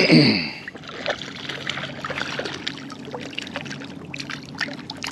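Water splashing and trickling around a wading angler as a hooked trout is played on the line, with many small sharp splashes over a steady low hum.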